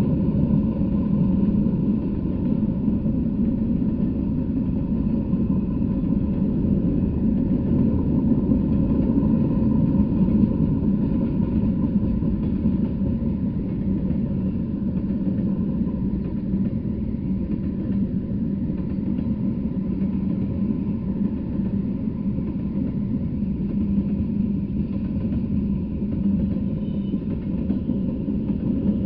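Freight train of covered hoppers and tank cars rolling past: a steady rumble of steel wheels on the rails that holds an even level throughout.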